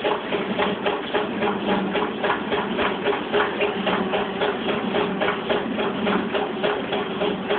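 Windmill burr stones grinding spelt into flour: a fast, even clatter of about five knocks a second over a steady hum.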